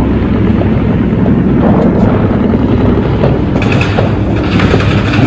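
Heavy military vehicles, trucks and tanks, rumbling along in a loud, steady low rumble, with a rougher hiss joining in from about three and a half seconds in.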